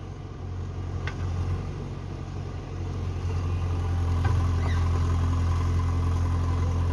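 JCB backhoe loader's diesel engine running steadily, growing louder about three seconds in and then holding.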